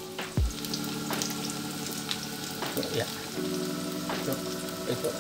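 Sliced garlic and shallots frying in hot oil in a steel wok: a steady sizzle with scattered small crackles.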